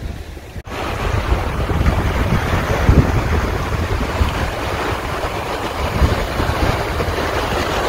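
Wind buffeting the microphone over the wash of sea waves on a rocky shore, a steady gusty rush that starts abruptly under a second in.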